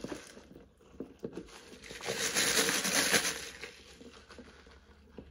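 Takeout food packaging crinkling and rustling as it is handled, densest for about a second and a half in the middle, with a few soft clicks before it.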